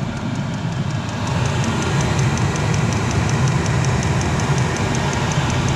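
Chinese diesel heater running steadily after start-up, with its combustion and blower noise and a fast, even ticking, and getting slightly louder about a second in.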